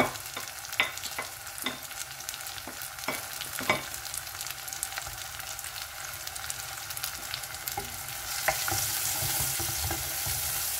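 Sliced onions frying in hot oil in a pot, a steady sizzle with scattered crackles. About eight seconds in the sizzle gets louder as a wooden spoon stirs freshly grated garlic and ginger into the onions.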